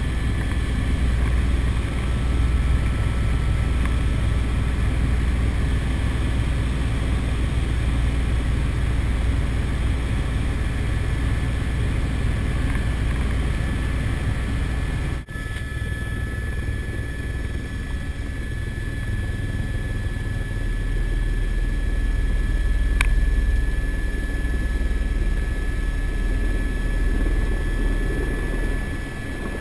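Helicopter turbine engine and rotor running steadily in flight, heard from inside the cockpit, with a thin high turbine whine over the deep rotor drone. The sound cuts out for an instant about halfway through, and there is a single click later.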